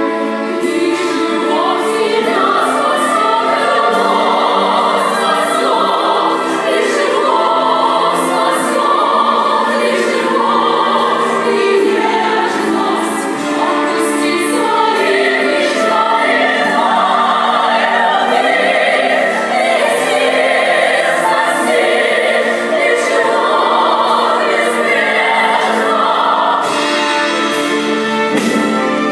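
Music: a song sung by several women's voices together, with instrumental accompaniment, steady and loud.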